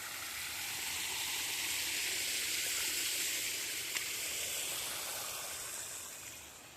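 Thermal spring water running over calcite travertine terraces, a steady rushing hiss that swells and then fades away. A single small click about four seconds in.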